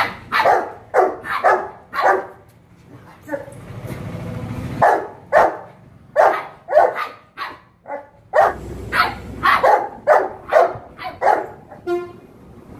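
Labrador puppy barking: short, high barks in quick runs of several, with brief pauses between the runs.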